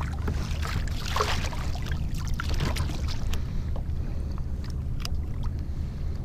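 Steady low wind rumble on the microphone with faint water noise, and scattered small clicks and taps as a hooked fish is handled and unhooked from a soft-plastic lure.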